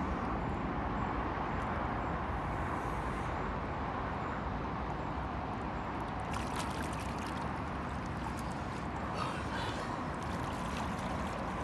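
Lake water sloshing and splashing around a wading angler's legs and a floating carp sling as a carp is released, with a few short splashes about six seconds in and again about nine seconds in. A low steady rumble runs underneath.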